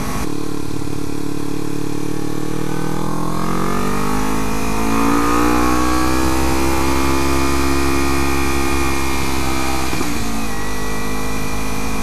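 Kawasaki Ninja 300's parallel-twin engine running under way. Its pitch climbs as it accelerates a few seconds in, holds, then drops sharply near the end and settles lower.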